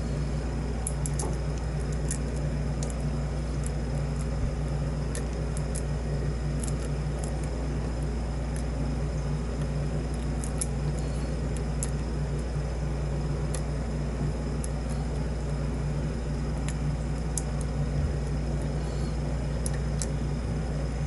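Faint, scattered metallic ticks of lock picks working the pins inside a modified ABUS 80/45 pin-tumbler padlock, over a steady low hum.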